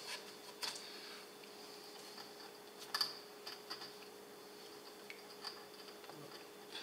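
Faint, scattered light clicks and taps from hands handling small parts and wiring on a wooden test-jig base plate, over a faint steady hum.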